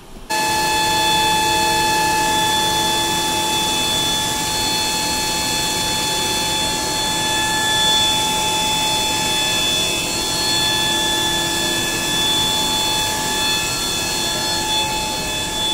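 Steady, loud whine of a Boeing 777-200ER's machinery running on the ground, heard from beneath the wing during flap extension. Several steady high tones sit over a rushing noise, starting abruptly and holding unchanged.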